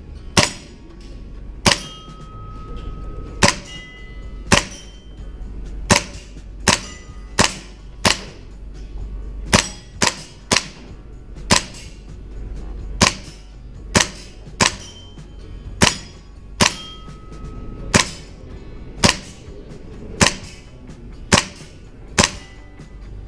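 VFC/Umarex MP5A5 gas blowback airsoft gun firing about two dozen single shots, each a sharp crack of gas and cycling bolt, spaced irregularly about half a second to a second and a half apart.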